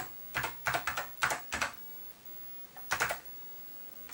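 Typing on an Apple II keyboard in short runs of keystrokes: two quick runs in the first two seconds, then a pause and a brief run about three seconds in.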